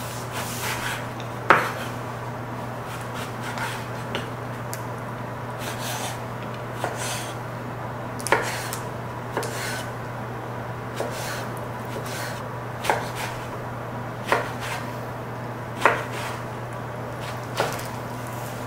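A chef's knife slicing and dicing a long purple eggplant on a wooden cutting board. The blade knocks sharply against the board every second or two, with softer slicing and scraping between the knocks, over a steady low hum.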